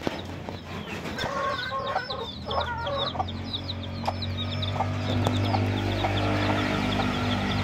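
Chickens clucking, with high short chirps over the clucks in the first few seconds. About halfway through a low steady hum comes in and carries on under scattered short clucks.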